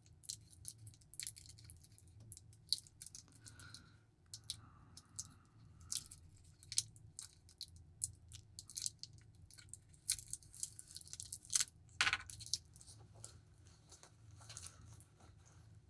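Faint crinkling and crackling of clear plastic shrink-wrap being picked at and peeled off a small metal watch end link by fingers, in many irregular small crackles and clicks.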